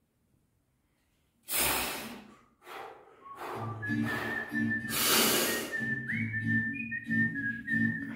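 A lifter's forceful exhales under a heavy barbell back squat: two loud, sharp hissing breaths, about a second and a half in and again about five seconds in, with a shorter one between. From about three and a half seconds in, background music with a whistled melody plays under them.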